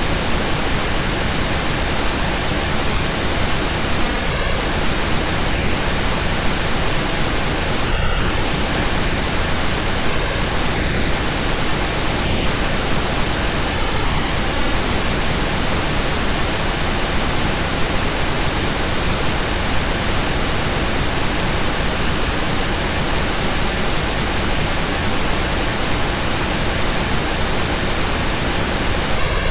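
Steady, even hiss of synthetic noise, like pink noise, played as a relaxation and sleep sound. Faint high tones flicker on and off in it every second or two.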